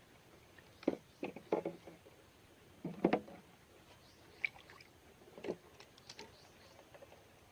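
Several short water splashes and knocks, in clusters about a second in, around three seconds, and again between four and a half and six seconds.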